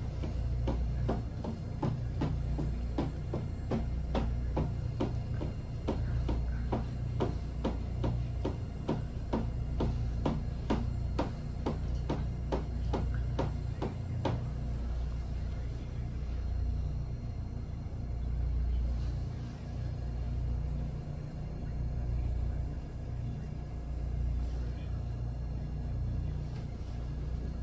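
Instep kicks striking a pillar, a quick run of thuds about two a second that stops about halfway through. A steady low rumble continues underneath.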